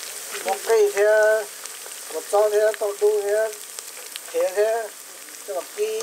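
Lemongrass, garlic and chilies sizzling in hot oil in a pot, a steady hiss with a person's voice coming in short bursts over it.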